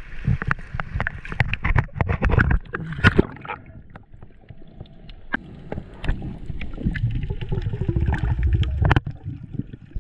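Choppy sea water sloshing and splashing around a camera at the surface. After a quieter stretch it gives way to a low, muffled rush of water as the spearfisher dives under.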